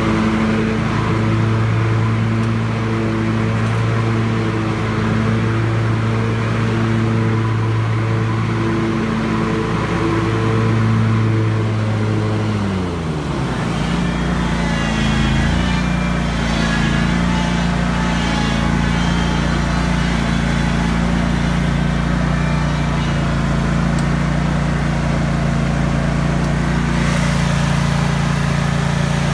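Scag Tiger Cat zero-turn mower's engine running steadily. About halfway through its pitch drops and settles lower under load, and a higher whirring joins in as the cutting deck's blades are engaged.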